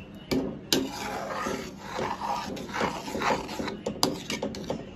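Flat metal spatula scraping and stirring thick walnut halwa in a kadhai, with a few sharp clinks of the spatula against the pan, near the start and about four seconds in.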